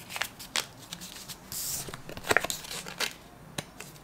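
Paper banknotes handled and folded by hand: a series of short crisp rustles and crinkles, with a longer crinkle about one and a half seconds in.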